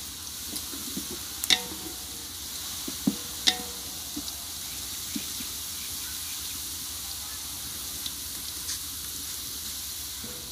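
Sliced onions frying in hot ghee in a large steel pot, a steady sizzle as they brown. In the first few seconds a wooden spatula stirring them gives a few sharp knocks and scrapes against the pot.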